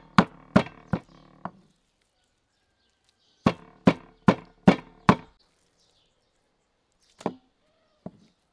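A cleaver chopping raw meat into mince on a thick wooden chopping block. Quick even chops come about two or three a second in two runs with a short pause between, then a couple of single knocks near the end.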